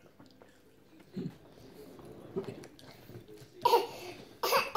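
A baby nearly a year old making short vocal sounds: a few quiet ones, then two louder, sharper ones near the end.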